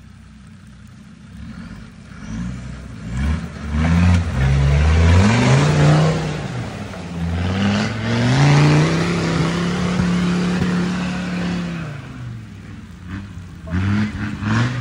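Land Rover Discovery Td5's five-cylinder turbodiesel revved hard through a mud bog. It starts faint, then climbs and falls with repeated throttle bursts and holds a steady high note for a few seconds in the middle before dropping back and revving again near the end. Through the loudest part there is a hissing rush of tyres spinning and throwing mud.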